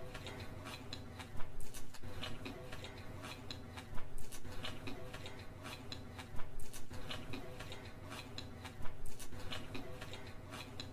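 Close-miked eating of noodles: wet chewing with sharp mouth clicks and crackles, coming in clusters about every two and a half seconds as forkfuls of noodles are slurped in and chewed.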